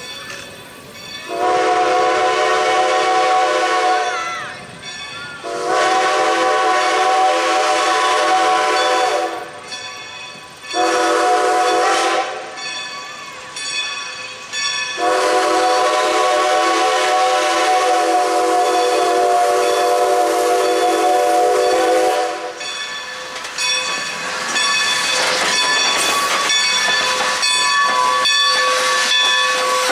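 Steam locomotive No. 90, a 2-10-0 Decapod, sounding its steam whistle in the grade-crossing signal, long, long, short, long, as it approaches a road crossing. In the last several seconds it passes close by with steam hissing.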